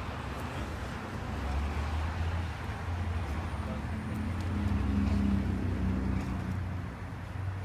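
Street ambience dominated by the steady low hum of motor-vehicle traffic. The hum swells and grows louder about halfway through, with indistinct voices underneath.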